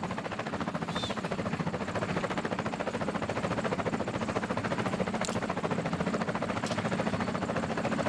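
Steady motor drone with a fast, even pulsing, with a few brief high chirps on top.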